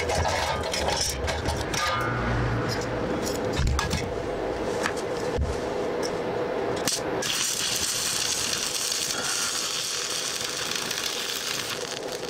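Light metallic clinks and cable handling over a steady hum, then about seven seconds in a stick welder strikes an arc on the steel stand and crackles steadily.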